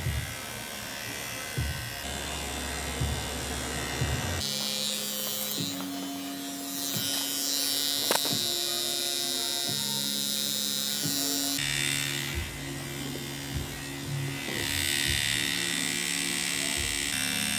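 Tattoo machine buzzing steadily as the artist tattoos the forearm, under background music of held notes that change every second or two.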